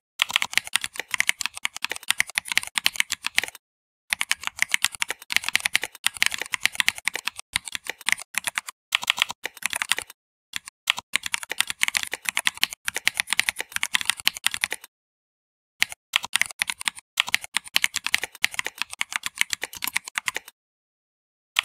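Fast typing on a computer keyboard: quick runs of key clicks, broken a few times by pauses of about a second or less.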